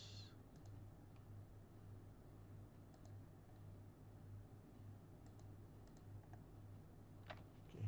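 Near silence: a few faint, scattered clicks of a computer mouse and keyboard, the loudest near the end, over a low steady hum.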